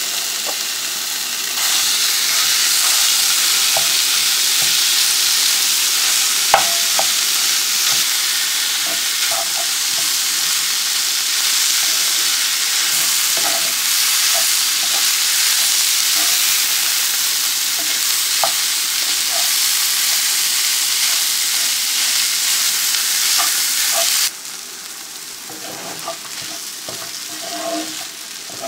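Canned corned beef sizzling in hot oil with fried onion in a cast-iron skillet, while a wooden spatula breaks it up and stirs, with light scrapes and taps against the pan. The sizzle gets louder about two seconds in and drops sharply near the end, and there is one sharp knock a few seconds in.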